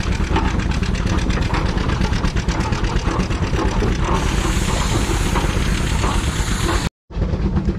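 Antique tractor engine running close by with a fast, even exhaust beat. A hiss joins in about four seconds in, and the sound drops out for an instant near the end.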